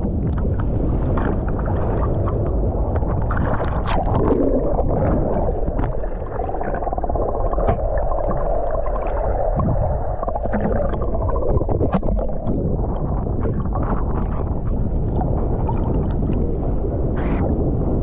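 Wind buffeting the microphone in a steady, heavy rumble, mixed with sea water sloshing and splashing.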